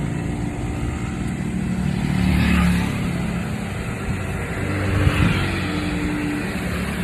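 Road traffic: motor vehicles passing by, one swelling up about two and a half seconds in and another around five seconds in.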